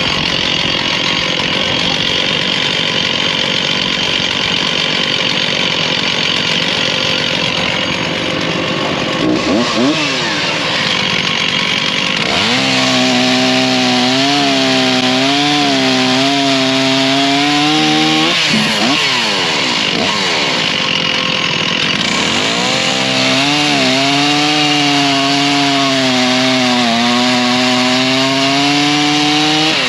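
Stihl chainsaw bucking Osage orange (hedge) firewood rounds, with steady engine noise before and between the cuts. It makes two long cuts, about six and seven seconds each, the engine note wavering as the chain bites, and the saw revs freely in between.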